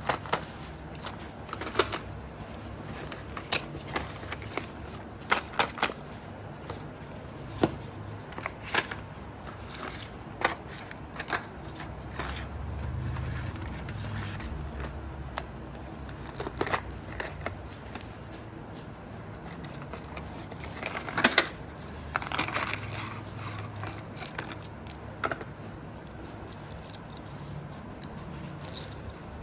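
Slate pencils and their packaging being handled close to the microphone: scattered sharp clicks and crackles at irregular intervals, with a few louder snaps about five seconds in and again about twenty-one seconds in.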